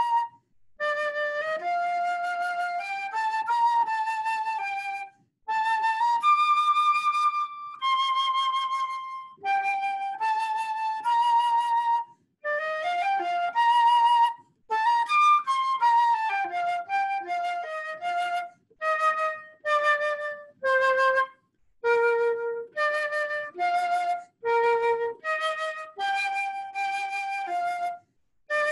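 Solo instrumental music: one melody line of an Easter hymn tune played phrase by phrase, with short breaks between the phrases.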